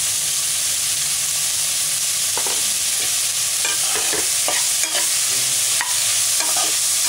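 Chopped onions, curry leaves and green chillies sizzling in hot oil in a metal pot as they are sautéed. A slotted spatula scrapes and stirs them in a run of short strokes from about two and a half seconds in.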